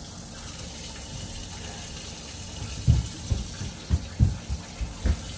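A kitchen tap running steadily, drawing warm water. Several dull low knocks come in the second half.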